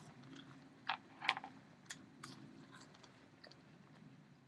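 Close-up mouth noises of someone chewing fries: soft wet clicks and smacks, the loudest about a second in.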